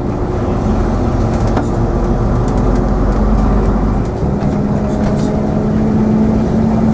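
Diesel engine of an AEC Routemaster coach running under load as the bus pulls away. About four seconds in the deep drone drops out with a brief dip in level, like a gear change, and the engine note then rises slowly and steadily.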